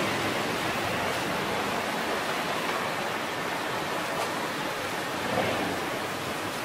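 Steady street ambience: an even hiss of city traffic, with no single sound standing out.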